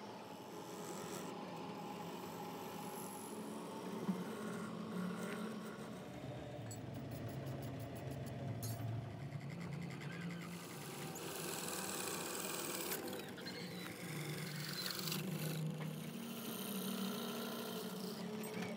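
Belt-driven wood lathe running while a hand-held turning tool cuts and scrapes the face of a segmented wooden bowl blank; the scraping hiss comes and goes in stretches of a few seconds over the lathe's steady hum.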